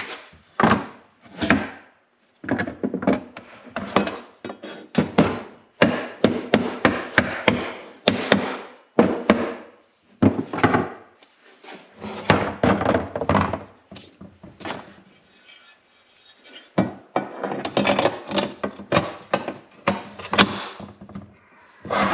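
Hand-tool work mounting a snowmobile ski: irregular clusters of sharp knocks, taps and clatter as tools and hardware are handled and struck, with short pauses between them.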